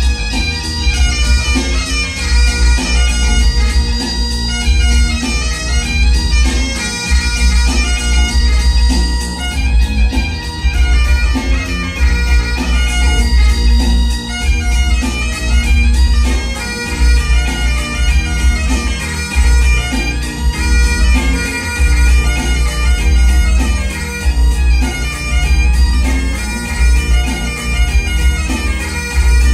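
Great Highland bagpipe played solo: the drones sound steadily under a fast-moving chanter melody with constant note changes.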